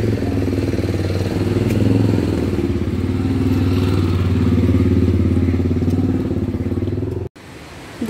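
Car engine running at low speed while the car drives slowly up a dirt road, a steady low hum heard from inside the cabin. It cuts off suddenly near the end.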